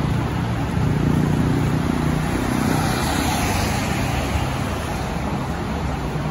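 Scania K230UB city bus's five-cylinder diesel engine running as the bus pulls away from the stop, with the hiss of traffic on a wet road behind it that swells about three seconds in.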